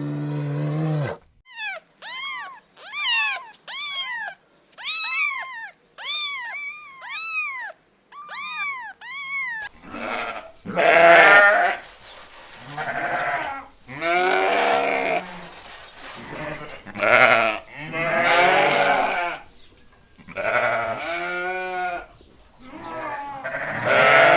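A run of about a dozen short, high-pitched, arched chirping calls, followed from about ten seconds in by livestock bleating over and over, each bleat about a second long with a wavering pitch.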